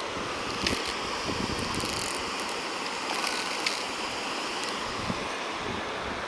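Steady rushing noise of river water and wind, with a few light clicks from a fly reel as a hooked bass is played.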